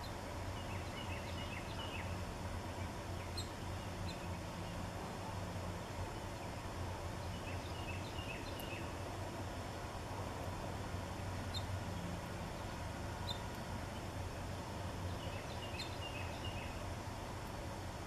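A songbird singing a short phrase of quick, falling notes, three times about seven seconds apart, with scattered single higher chirps in between, over a steady low background hum.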